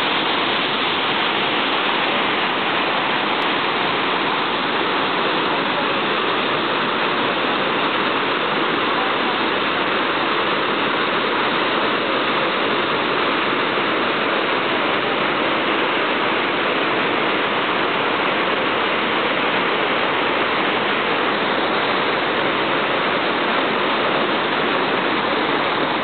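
Large waterfall: heavy water pouring over rock ledges into churning white rapids, a loud, steady rush.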